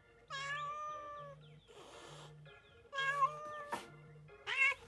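A cat meows three times, a long drawn-out meow near the start and two shorter ones about three and four and a half seconds in, over a phone ringtone playing a repeating melody. A short rush of noise comes about two seconds in.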